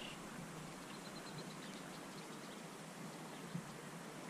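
Faint outdoor riverbank ambience: a steady low hiss, with a short run of about five quick, high chirps about a second in.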